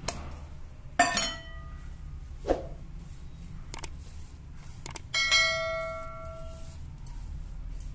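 Stainless steel kitchen vessels striking each other and ringing like a small bell. There is a short clink about a second in, a soft knock midway, and a louder strike a little after five seconds in that rings on for over a second.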